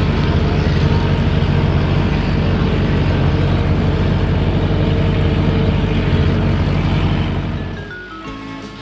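Heavy diesel engine of earthmoving equipment running steadily, fading away near the end as music comes in.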